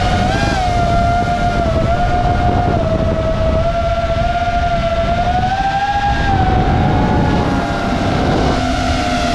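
Small quadcopter drone's electric motors and propellers whining at a steady high pitch that drifts slowly up and down, heard from on board with a rushing noise of air beneath.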